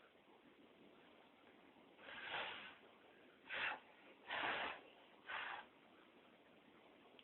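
Four short, breathy puffs of air from a person's mouth or nose, coming at intervals of about a second, the third one the longest.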